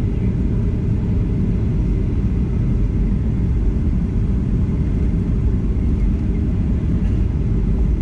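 Steady low rumble of engine and airflow noise inside the cabin of a Boeing 737-900ER airliner in flight, heard from a rear window seat.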